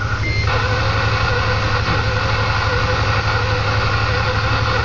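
Kenworth T2000 truck's diesel engine running steadily with an even low throb, heard from inside the cab, with a steady hiss laid over it from about half a second in.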